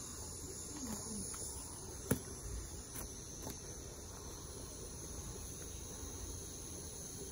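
Crickets chirring steadily, a high continuous trill, with a single sharp click about two seconds in.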